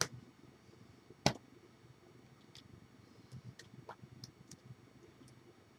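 Sharp clicks and taps of hands striking each other while signing: a loud one right at the start and another about a second in, then scattered softer ticks, over a low room hum.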